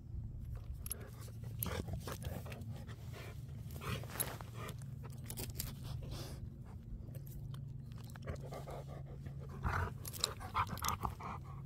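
A dog panting close to the microphone, with scattered small clicks and rustles.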